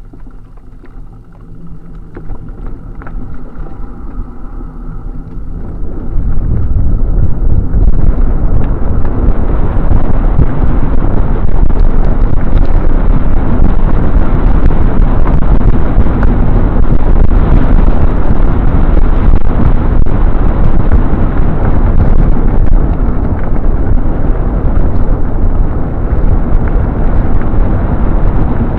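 Loud wind rumble buffeting the camera microphone, building over the first six seconds and then steady, as the bicycle gathers speed on the road.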